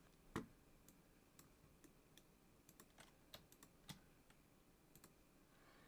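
Faint, scattered clicks of a computer keyboard, about a dozen keystrokes at uneven intervals, the sharpest about half a second in.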